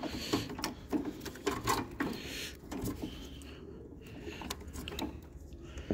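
Scattered light clicks, taps and rustles of a hand reaching among wiring and metal in a tractor's engine bay. They are thickest in the first three seconds and sparser after, over a low steady hum.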